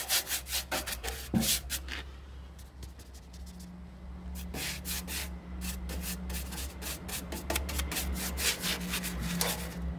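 Paintbrush bristles scrubbing rust converter onto a steel fuel tank in quick back-and-forth strokes. The strokes pause for a couple of seconds about two seconds in, then resume. A steady low hum runs underneath.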